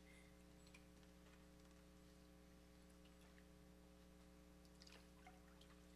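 Near silence: room tone with a steady faint hum and a few faint ticks.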